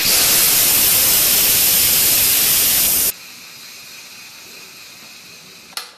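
The Instant Pot IP-DUO60 electric pressure cooker's steam release valve, turned to venting for a quick release, blows out a jet of steam with a loud, steady hiss as the built-up pressure escapes. The hiss cuts off suddenly about three seconds in. A much fainter hiss follows, then a single click near the end.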